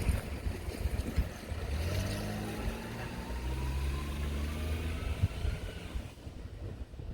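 Electric train running past a level crossing, its traction motors whining and rising in pitch as it speeds up, over a low rumble with a couple of wheel knocks on rail joints. The sound fades away about six seconds in.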